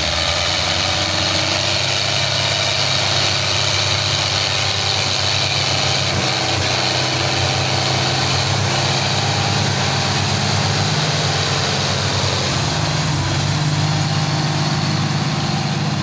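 Two tractor diesel engines, a Fiat 640 and a Belarus, running hard under load as they pull a heavily loaded trolley stuck in soft ground. The sound is loud and steady, and the engine pitch rises slightly about three quarters of the way through.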